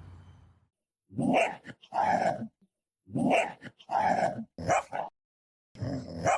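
A dog barking: about seven short barks, mostly in pairs, starting about a second in.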